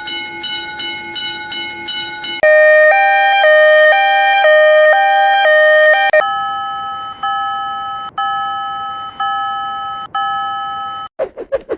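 Railroad crossing warning signals, one crossing's sound after another. First comes a ding-ding bell of about two to three strikes a second. Then comes a louder two-tone electronic alarm alternating between two pitches, then slower ringing strikes about once a second, and near the end a fast pulsing tone.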